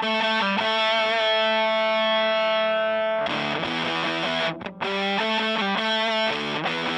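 Electric guitar (American Stratocaster) played through a Power2 fuzz pedal into a Fender Blues Junior amp, giving a thick fuzz-distorted tone. A single note rings out about a second in and is held for about two seconds. After a short break the guitar plays more quick notes and chords.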